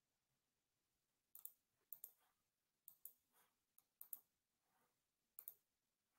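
Faint computer mouse clicks, coming in quick pairs, five pairs over a few seconds.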